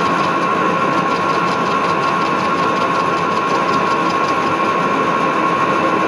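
Milling machine running with an end mill cutting the end of a steel spindle under flood coolant: a steady high whine over continuous machining noise.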